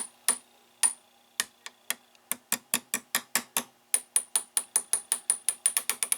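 Repeated taps on the glass of an overheated 50C5 vacuum tube, sharp clicks with a brief high ring. They are slow and spaced at first, then quicken to about five a second from about halfway through.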